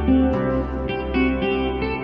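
Background music led by plucked guitar, with notes changing about every half second over a steady bass.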